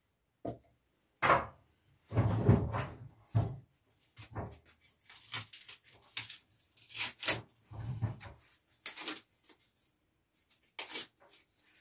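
Split firewood logs knocking and scraping against one another as they are loaded into the firebox of a brick wood-burning stove: a run of irregular wooden knocks.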